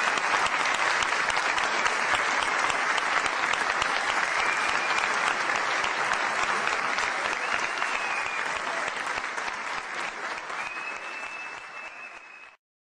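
Audience applauding steadily, fading away over the last two seconds and then cutting off abruptly.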